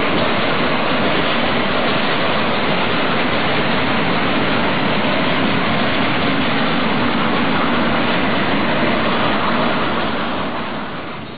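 A steam locomotive of the Nilgiri Mountain Railway moving off with its train, a steady rushing noise without clear chuffs. The sound fades out near the end.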